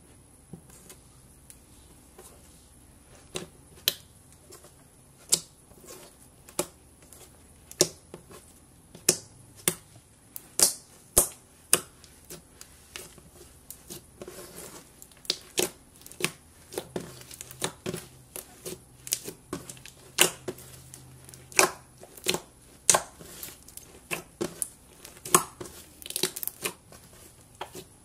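Hands squishing and pressing a sticky blue slime, giving irregular sharp pops and clicks, few at first and then one or two a second, with soft crinkling between them.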